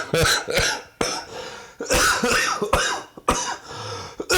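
A man coughing repeatedly in short, irregular bursts: a laughing fit that has turned into coughing.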